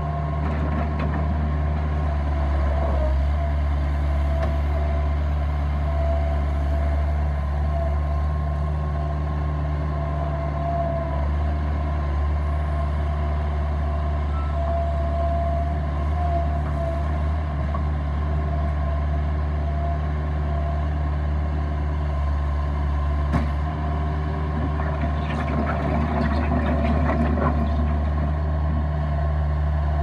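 Bobcat 753 skid steer's diesel engine running steadily under load, with a steady high whine over it, while the machine drives and works gravel with its bucket. One sharp knock comes a little past the middle, and rough scraping and rattling of gravel follows near the end.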